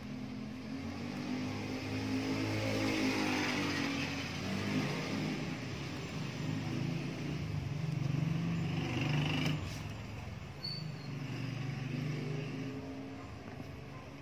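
A motor vehicle engine running, a low pitched hum that swells over the first few seconds, shifts pitch a few times and fades away near the end.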